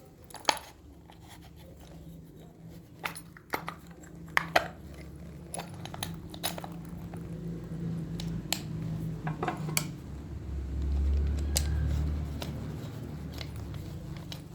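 Scattered small metal clicks and knocks from the parts of a motorcycle starter motor being handled and fitted back together. A low rumble swells for about two seconds near the end.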